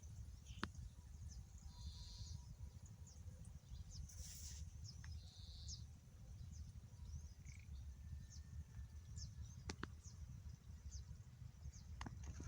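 Birds chirping faintly with many short, high notes over a steady low rumble, with a few sharp clicks about half a second in, near ten seconds and near the end.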